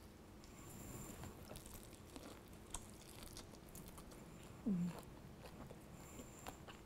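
A person biting and chewing a mouthful of pan-fried, flour-coated garlic shrimp, faint and close, with scattered small mouth clicks. About two thirds of the way through there is a short, falling hummed "mm".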